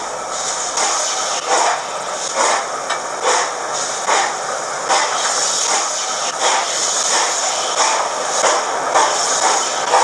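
Hornby HM7000 sound decoder playing its W1 steam locomotive sound file through the model's small onboard speaker: slow, evenly spaced exhaust chuffs, a little more than one a second, over a steady steam hiss.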